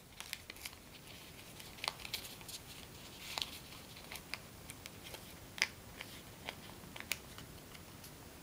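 Origami paper being folded and creased by hand: faint crinkling and scattered soft ticks and rustles at irregular intervals.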